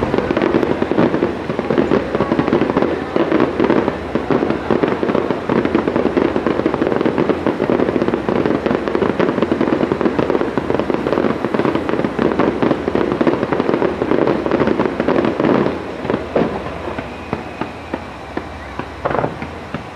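Aerial fireworks: a dense, rapid crackling of many small pops for about fifteen seconds, thinning after that to a few scattered bangs.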